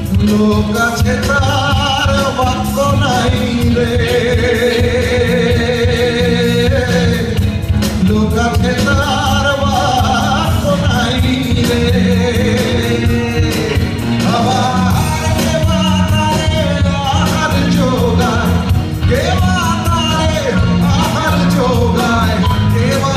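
A male singer sings a Bengali song live into a microphone over a band accompaniment with a steady beat, amplified through a PA in a hall.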